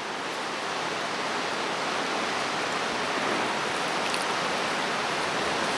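A steady wash of noise from a large audience in a hall, with no distinct claps or words, slowly growing a little louder.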